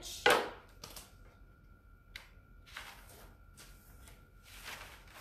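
Handling noises of a paper-backed decor transfer sheet being slid and repositioned: a sharp swish about a quarter second in, then a few light taps and softer rustles.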